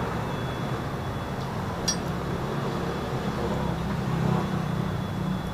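Street traffic rumbling, with a vehicle engine swelling and fading through the middle. A single small metallic clink about two seconds in, from loose parts being handled.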